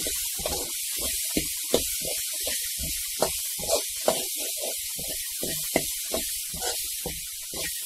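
A spoon stirring sprouted pulses and chopped vegetables in a metal bowl: a quick run of scraping and rustling with several sharp clinks against the bowl, over a steady hiss.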